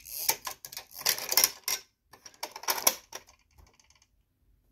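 Hard plastic clicking and rattling as a toy motorcycle is pushed into the 1998 Hess toy RV and the van's fold-down ramp door is snapped shut. A quick run of clicks and knocks fills the first three seconds or so, then it goes quiet near the end.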